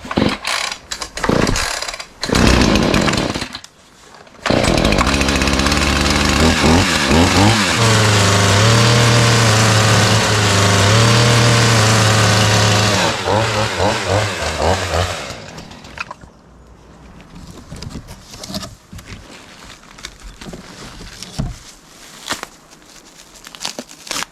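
Husqvarna 445 two-stroke chainsaw started on choke. A few sharp starter-cord pulls come first, then the engine catches about four and a half seconds in, revs up and down, and runs at high revs for several seconds before dying away about fifteen seconds in. Faint clicks and handling noises follow.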